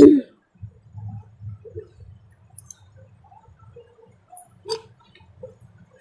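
Mango drink being gulped quickly from a small plastic bottle: quiet swallows and plastic bottle handling, with scattered small clicks and one sharp click about three-quarters of the way through. A short loud voice sound comes right at the start.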